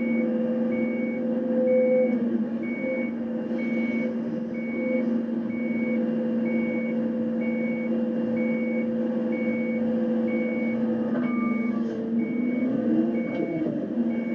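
Volvo EC290 hydraulic excavator working the bucket, heard from the operator's seat: a steady drone of engine and hydraulic pump, with a warning alarm beeping at a regular pace throughout. Near the end the drone's pitch sweeps up and back down as the hydraulics take load.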